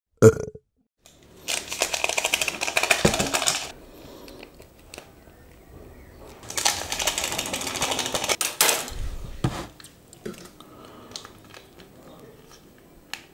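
Plastic instant-noodle seasoning sachets crinkling and tearing in two spells of loud crackly rustling, with softer rustles and small clicks between them as the contents are squeezed into the cups. A brief knock right at the start.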